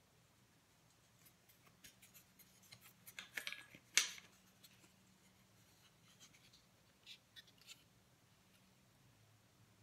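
Handling noise from a wooden-framed jaw harp being turned in the hands: faint scattered clicks and scrapes, thickest a little after three seconds in, with one sharp click at about four seconds. The harp is not being played.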